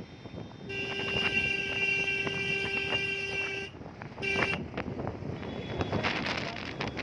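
A vehicle horn held for one long, steady blast of about three seconds, then a short toot a moment later, over road noise.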